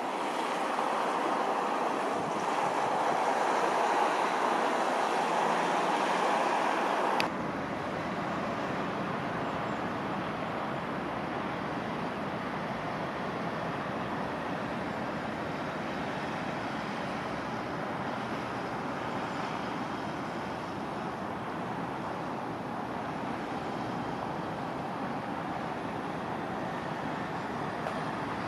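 Distant road traffic and wind, a steady even noise with no distinct events. About seven seconds in it changes abruptly to a quieter, lower rumble.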